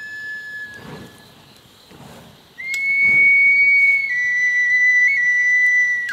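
A high, pure-toned wind instrument of the flute or whistle kind plays long held notes that step down in pitch. It is soft at first and turns much louder about two and a half seconds in. Soft low whooshes come about once a second in the first half.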